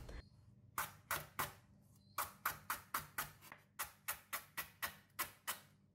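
Chef's knife slicing lemongrass stalks into thin rings on a wooden chopping board: sharp knocks of the blade on the board, three at first, then after a short pause a steady run of about four a second.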